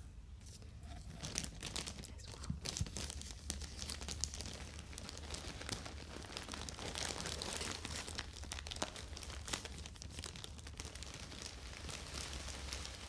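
Plastic packaging (clear garment bags and air-cushion wrap) crinkling and crackling as hands handle it and lift a bagged garment out of a cardboard box. It starts about a second in and keeps going in a dense run of sharp crackles.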